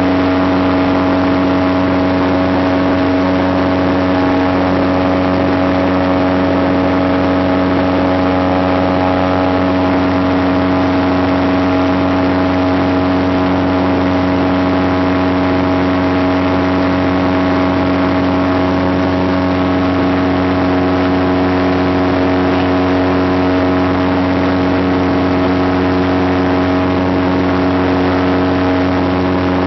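Light aircraft's piston engine and propeller droning at a steady cruise setting, heard inside the cockpit, with an unchanging pitch throughout.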